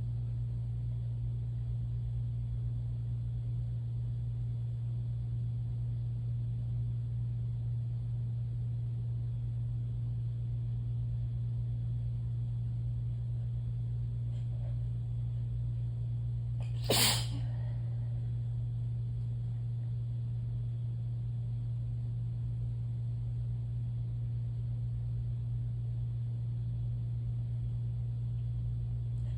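A single human sneeze, one short sharp burst, a little past the middle, over a steady low hum.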